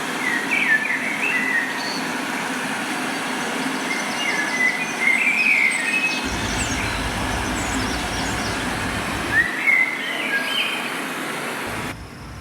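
Small birds chirping in short bursts, three times, over a steady rushing background noise, with a low rumble joining for a few seconds in the middle.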